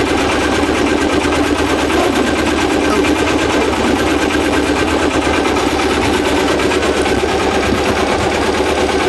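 Sailboat's engine running steadily, a rapid, even clatter under way.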